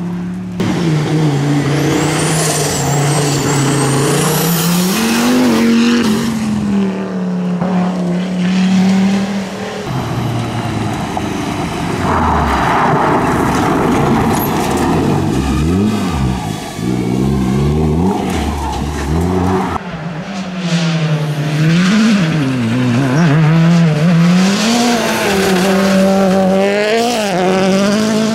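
Rally cars driven flat out on a gravel stage, their engines revving up and falling back again and again through gear changes and corners, with gravel and stones spraying from the tyres. It comes as several separate passes cut one after another.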